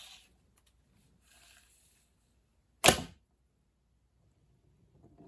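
Faint rustling, then a single sharp, loud snap a little after halfway.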